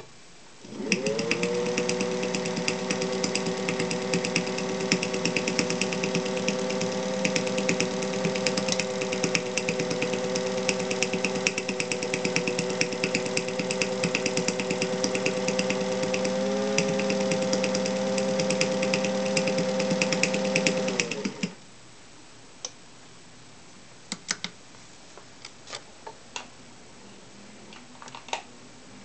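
Singer 201 sewing machine running at a steady speed, stitching through a folded terry towel: a smooth motor hum with rapid needle ticking that starts about a second in and stops about two-thirds of the way through. A few light clicks follow.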